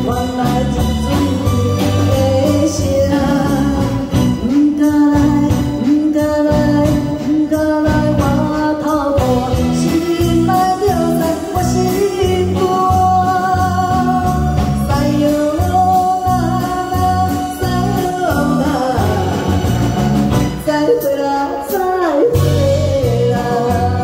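A woman singing a song through a microphone over band accompaniment with electric guitar and keyboard, played through the room's PA speakers.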